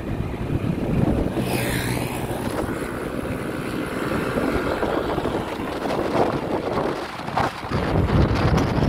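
Wind buffeting the microphone of a camera riding on a moving motorbike, over the low running hum of its engine.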